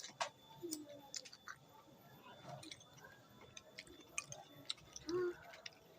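Faint close-up chewing and mouth sounds of someone eating bakso meatball soup, with scattered small clicks. A short hum-like sound about five seconds in.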